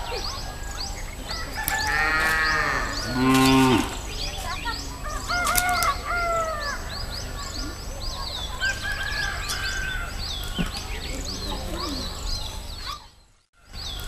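Rural ambience of many birds chirping, with a cow mooing about two to four seconds in and another animal call around six seconds. The sound drops out briefly near the end.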